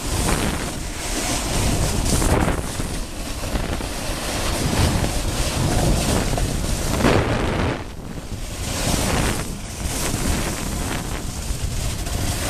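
Wind rushing over the microphone and a snowboard hissing and scraping over packed snow during a downhill run. The noise swells and eases, dipping briefly twice in the second half.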